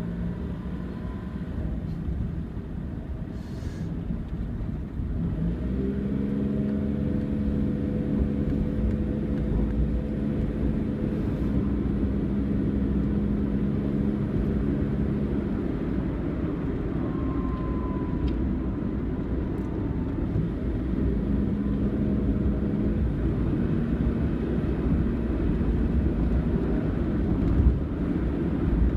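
Car driving on the road: steady low road and engine rumble, with an engine note that rises about five seconds in and holds, then drops away and comes back later.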